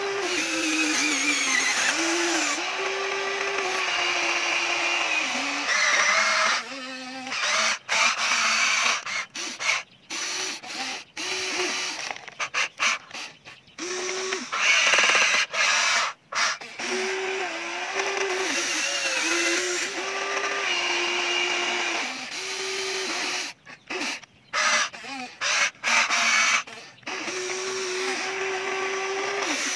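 Electric motors of a Huina remote-control excavator whining as the arm, bucket and cab move, the pitch stepping up and down. The whine stops and starts repeatedly, with several short pauses in the middle.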